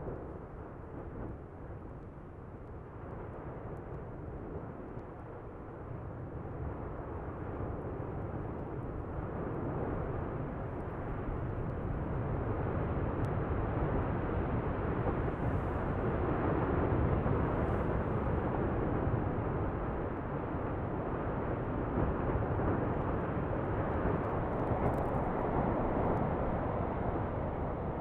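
Lava fountaining from a fissure-eruption vent at Fagradalsfjall: a continuous deep rushing noise of gas and lava jetting out, growing louder over the first half and then holding steady.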